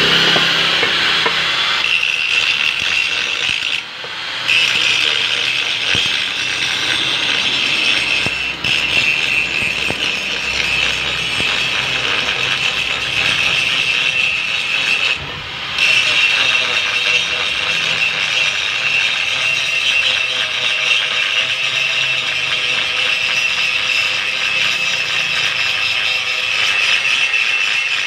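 Power grinder grinding down an aluminium weld on a repaired housing. It is a loud, steady whine with grinding noise, cut off briefly three times (about 4, 8 and 15 seconds in) before it starts again. This is the finishing of the welded patch.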